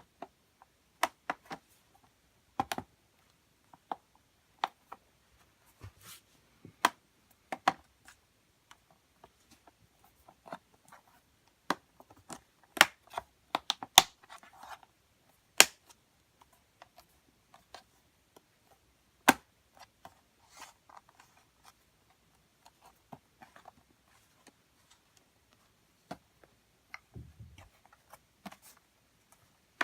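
Irregular sharp clicks and taps of hands and small tools working on an ASUS X510UA laptop, the loudest cluster in the middle, with a soft low thump near the end.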